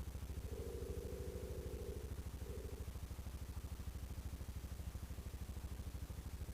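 ATV engine idling with a steady, even low pulse. A steady higher tone joins it twice in the first three seconds, once for about a second and a half and once briefly.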